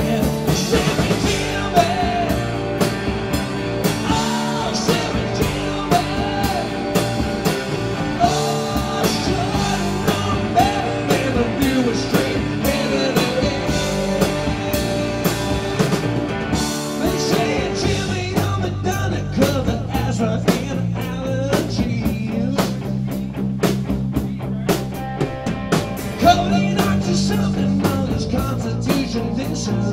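Live rock band playing an instrumental break: an electric guitar lead with bending notes over bass and a steady drum kit beat.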